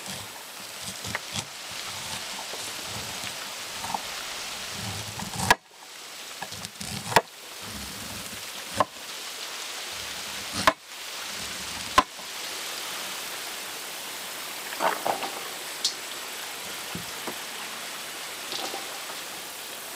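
Steady sizzling hiss of food frying, with several sharp knocks spaced a second or two apart. The sizzle cuts out abruptly twice and comes back.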